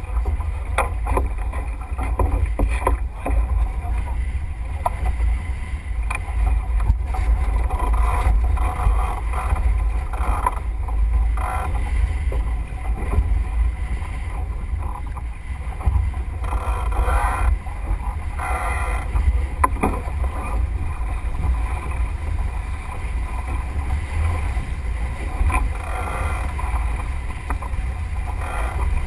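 Wind buffeting the microphone of an onboard camera, a steady low rumble, over water rushing along the hull of a Melges 24 keelboat sailing through chop.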